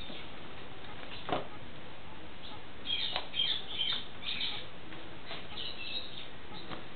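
Pet corella giving short, high chirps in a quick cluster about three seconds in and a fainter run around six seconds, after a single light knock about a second in.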